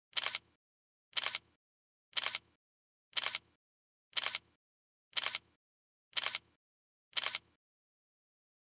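A camera-shutter click sound effect repeated about once a second, nine times, each a quick cluster of clicks with silence between.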